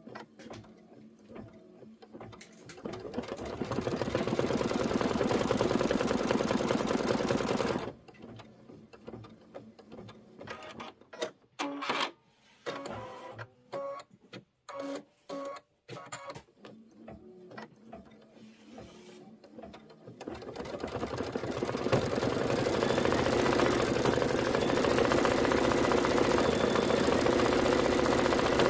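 Computerized embroidery machine stitching: it speeds up about three seconds in and runs steadily for about five seconds, then stops, leaving a stretch of scattered clicks. About twenty seconds in it runs up to speed again and stitches steadily.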